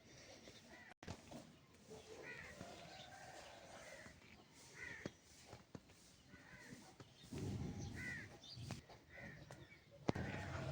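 Crows cawing, faint and repeated, a short call every second or so. About seven seconds in there is a brief low rumble.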